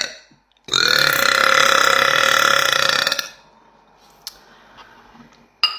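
A woman's long, loud burp, held at a steady pitch for about two and a half seconds.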